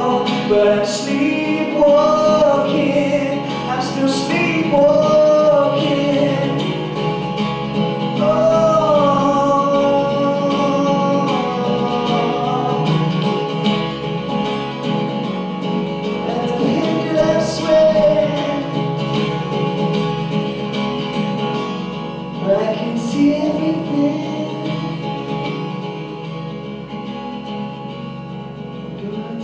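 A man singing into a microphone over a strummed acoustic guitar. The voice is strongest in the first half and comes in only in short phrases later, while the guitar carries on and the music slowly grows quieter toward the end.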